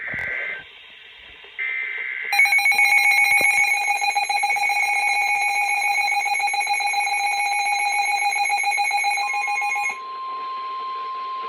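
Emergency Alert System alert tones: the tail of the buzzy digital SAME header bursts, two short bursts about a second apart, then the loud, steady two-tone EAS attention signal for about eight seconds. Near the end a single steady weather-radio alert tone comes in and carries on alone after the two-tone signal stops.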